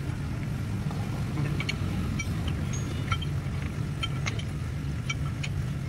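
An engine running steadily at idle, a constant low hum, with scattered light clicks and taps of metal parts being handled on a hydraulic cylinder.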